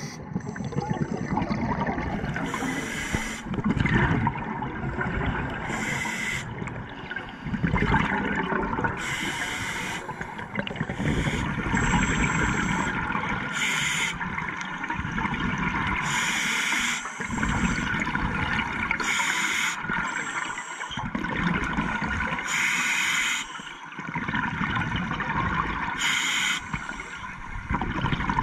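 Scuba regulator breathing underwater: a short hiss on each inhalation, roughly every three seconds, with gurgling bursts of exhaled bubbles between them.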